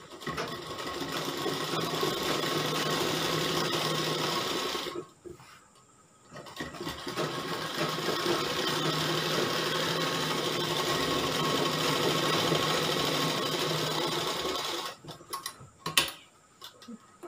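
Sewing machine stitching fabric in two steady runs, about five and eight seconds long, with a short stop between them; a few light clicks near the end.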